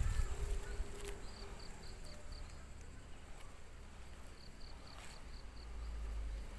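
Insects chirping: short runs of high, evenly spaced chirps, about five a second, over a steady high-pitched insect drone. A low rumble of handling noise at the start.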